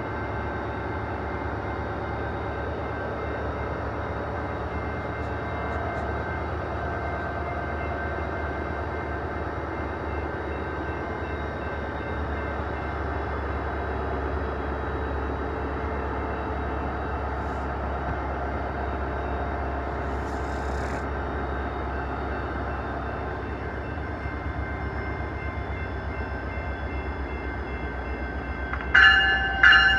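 A train's diesel engine running steadily, a low even rumble with faint steady tones above it. Just before the end, a quick series of loud, evenly spaced pitched pulses begins.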